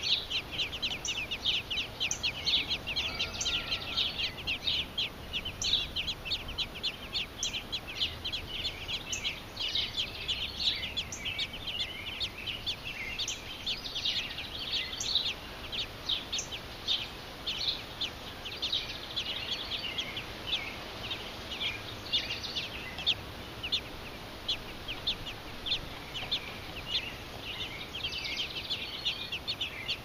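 American robin nestlings begging for food: a continuous chorus of rapid, short, high-pitched peeps from several chicks gaping in the nest.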